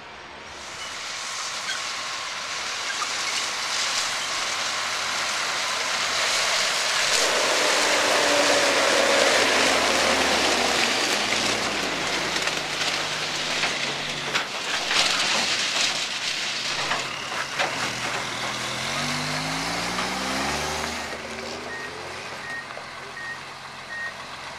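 Heavy trucks driving past close by, diesel engine and tyre noise loud, with one truck's engine rising in pitch as it accelerates through the gears. Near the end a tipper truck's reversing beeper sounds about twice a second as it backs up.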